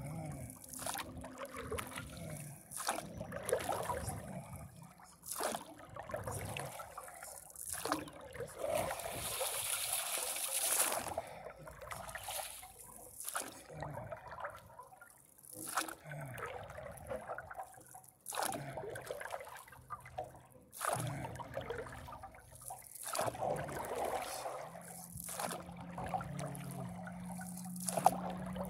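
Paddle strokes from a paddleboard: the blade dipping and pulling through lake water, with sloshing and dripping, about one stroke every one to two seconds.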